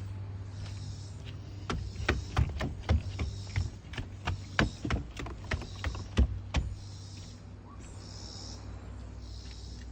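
A quick irregular run of sharp snaps and crunches, about three a second for some five seconds, typical of footsteps through dry brush and twigs. Behind them a high insect chorus pulses about once a second over a low steady rumble.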